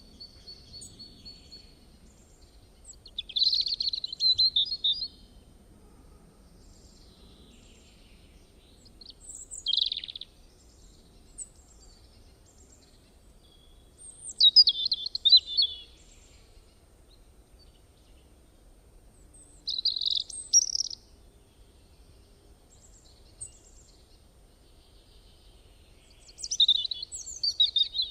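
A bird singing short chirping phrases, one about every five or six seconds, over faint steady background noise.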